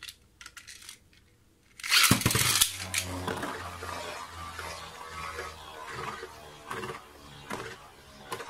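Beyblade Burst tops launched into a plastic stadium. A few light plastic clicks, then a loud sudden burst about two seconds in as they are released, and then they spin and scrape with a steady hum. Sharp clacks from them striking each other come several times in the last few seconds.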